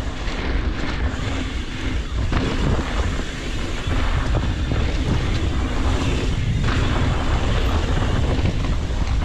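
Wind buffeting the microphone of a helmet- or chest-mounted camera on a fast mountain-bike descent, a steady low rushing with the tyres rolling over dirt and a few small knocks from the bike over bumps.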